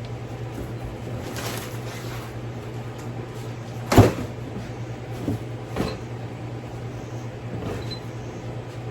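Cardboard and packing being handled while a heavy benchtop planer is got out of its box: a rustle, then one loud thump about four seconds in and two lighter knocks shortly after. A shop fan hums steadily underneath.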